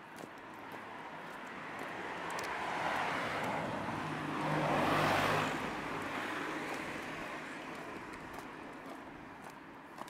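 A car passing by: its engine and tyre noise swells to a peak about halfway through, then fades away.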